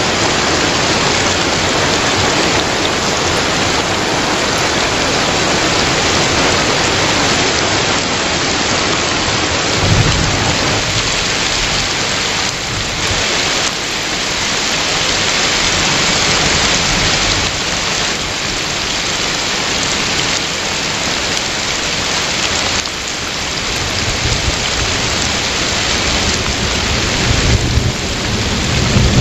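Heavy rain pouring steadily and splashing on a wet surface. Thunder rumbles low, briefly about ten seconds in and again through the last several seconds, growing louder near the end.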